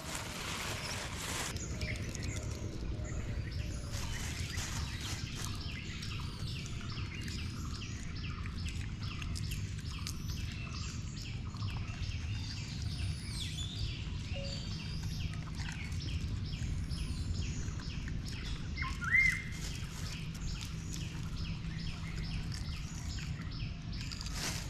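Outdoor ambience of many small birds chirping and twittering, over a steady low rumble. One louder, brief rising call stands out about 19 seconds in.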